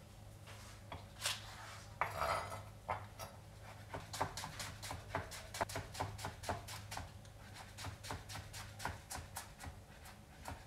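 Chef's knife thinly slicing a green onion on a plastic cutting board: light, crisp taps of the blade meeting the board. The taps come sparsely at first, then in a quick, even run of about four or five a second from about four seconds in.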